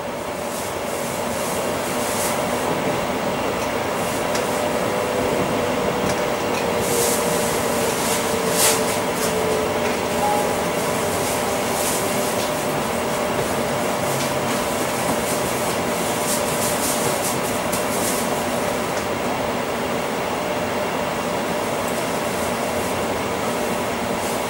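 Class 345 electric train running, heard from inside the carriage: a steady rumble and hum from the train, building over the first couple of seconds, with a few sharp clicks from the wheels and track about seven to nine seconds in.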